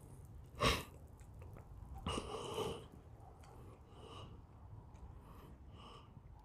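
A person's breathing close to the microphone: a short, sharp sniff under a second in and a longer breath around two seconds, then faint short rustles.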